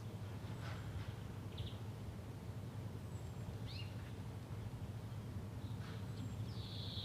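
Spring morning ambience: scattered short bird chirps over a steady low rumble, with a louder falling call near the end.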